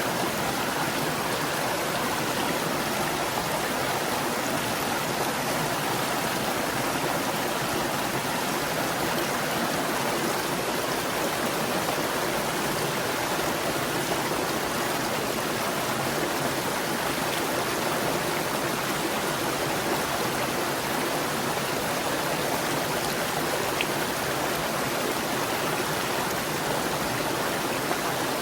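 Mountain stream flowing and gurgling over rocks, a steady rush of water.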